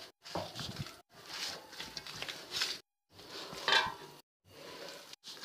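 Hands kneading makki (corn-flour) dough with lukewarm water: irregular soft squishing and pressing noises that come in short bursts with brief gaps.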